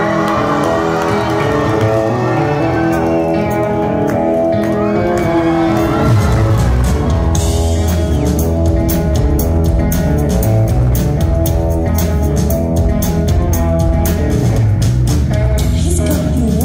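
Live rock band playing in a large hall. Sustained electric guitar chords ring for the first few seconds, then the drums come in about six seconds in with kick drum and cymbals, and the full band plays on.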